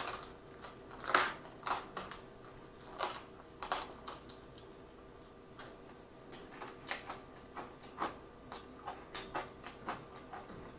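Close-miked chewing of crunchy fried chicken: irregular crisp crunches, stronger in the first few seconds, then lighter, sparser clicks.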